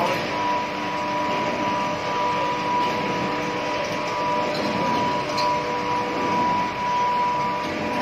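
Medium-frequency induction melting furnace running: a steady, unwavering whine over a dense mechanical din.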